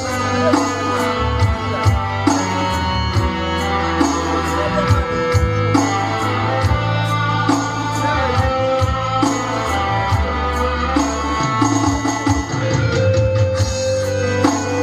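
Technics electronic keyboard playing an instrumental passage, with sustained chords and a bass line over a steady programmed drum beat.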